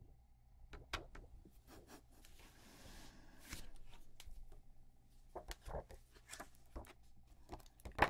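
Quiet handling sounds: scattered light clicks and taps of fingers on a small plastic Bluetooth speaker, with a soft rustle of the thin plastic screen-guard film just peeled off it about two and a half to three and a half seconds in.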